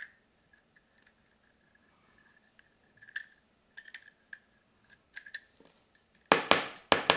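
Small clicks and ticks of a desoldering gun's glass solder-catching chamber and its spring being handled and taken apart, then a louder double clatter near the end.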